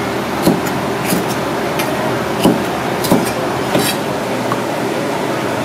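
Chef's knife chopping bell pepper on a plastic cutting board: short sharp knocks about every two-thirds of a second, over a loud steady background rush.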